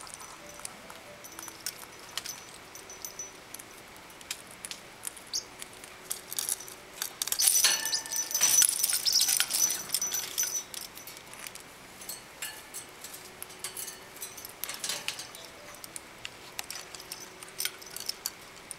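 Small clicks and rattles of a pineapple conure and a parrotlet moving about a wire cage and eating from a hanging bowl, with a louder stretch of clattering around the middle.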